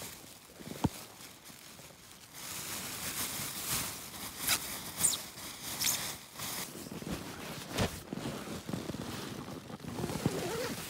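Plastic bag crinkling and rustling, with dry grass crunching underfoot, as a pair of shoes is wrapped in the bag. The sound comes in irregular short bursts and clicks.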